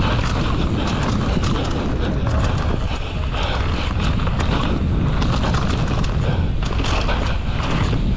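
Downhill mountain bike descending a rough dirt trail at speed: tyres running over dirt, rocks and roots and the bike rattling with many short knocks, over a steady low rumble of wind buffeting the action-camera microphone.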